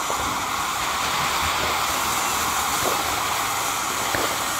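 Cone-shaped ground fireworks fountain spraying sparks with a steady rushing hiss, with a faint crack or two near the end.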